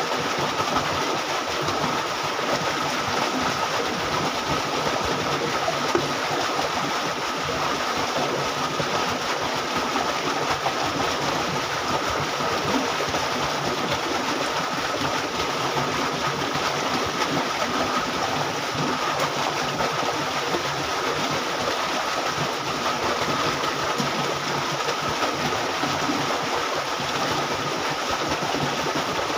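Steady rushing of water flowing along a concrete irrigation canal, with a thin steady tone above it.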